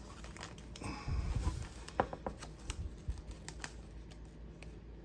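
Hands handling a trading card pack and its cards: scattered light clicks and taps, with a brief rustle about a second in and a sharp click about two seconds in.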